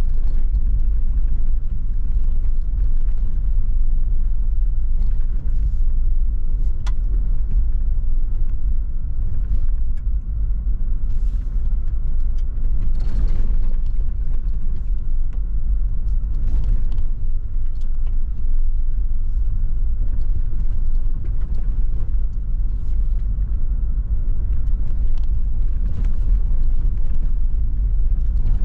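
A vehicle driving along a dirt track: a steady low rumble of engine and tyres, with scattered clicks and knocks.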